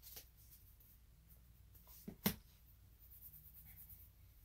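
Quiet handling of Pokémon trading cards at a table: faint scattered scratching and light clicks, with one sharp tap a little over two seconds in.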